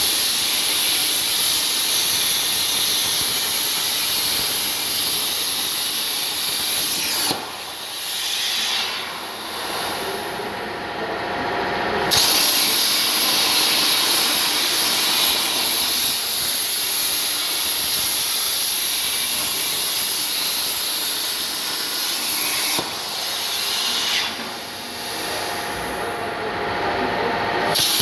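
CNC plasma cutter cutting 2 mm sheet steel: a loud, high hiss from the arc. It cuts out about seven seconds in, comes back about five seconds later, and cuts out again past twenty seconds. Between cuts a quieter hiss with a faint steady hum carries on.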